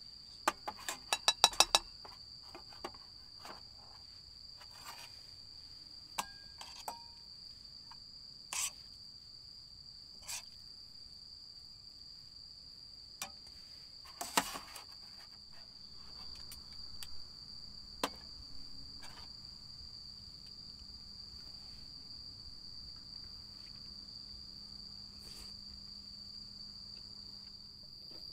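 Crickets chirring steadily, with scattered clinks and scrapes of a metal spoon against a frying pan and stainless steel bowls as food is dished out. A quick run of loud clinks about a second in is the loudest part.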